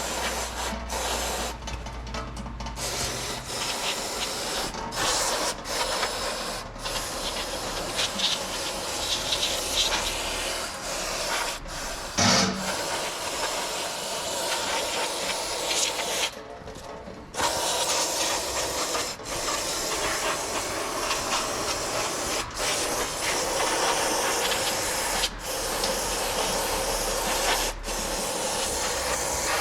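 Aerosol parts cleaner spraying in long hisses, broken by a few short pauses, with one sharp knock near the middle.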